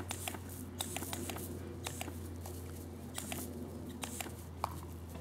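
Kelpie/collie cross sheep dogs chasing and snapping at water jets from a hose gun: many short sharp clicks and brief hissing bursts of spray, over a steady low hum.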